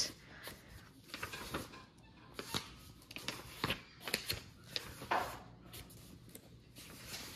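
Paper pages of a large activity book being turned and handled: a string of soft rustles and flicks spread over several seconds.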